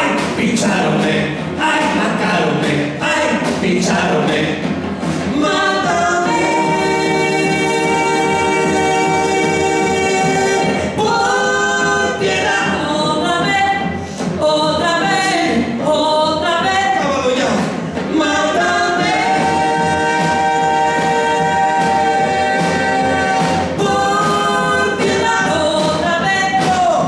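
A carnival charanga troupe singing together in chorus. It moves from short sung phrases into long held chords, once about six seconds in and again about twenty seconds in.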